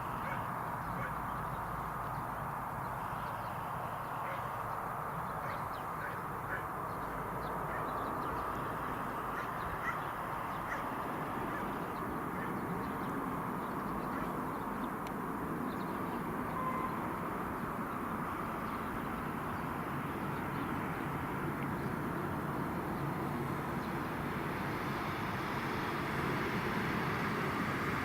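Steady distant rumble of a Dash 8 Q400's turboprop engines, growing a little louder near the end.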